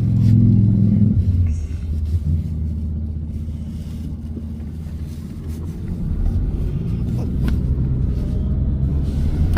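A car driving, heard from inside the cabin with the windows half down: a steady low rumble, a little louder in the first second.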